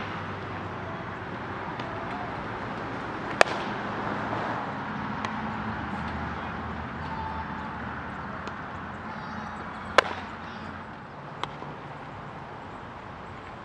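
Sharp pops of a baseball smacking into a leather fielder's glove, twice about six and a half seconds apart, with a few fainter clicks in between, over a steady low outdoor hum.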